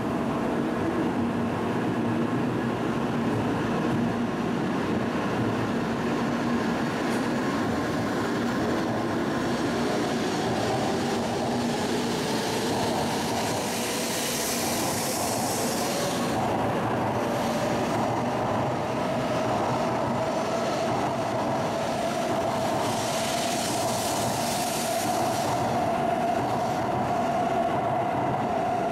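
N700-series Shinkansen pulling out of the platform, its motor whine rising steadily in pitch as it gathers speed, with a rush of air and wheel noise as the cars slide past.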